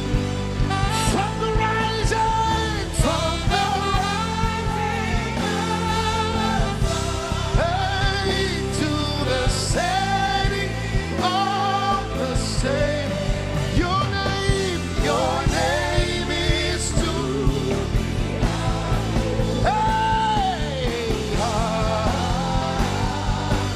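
Live worship music: a singer holds long, wavering notes over a full band with a steady drum beat.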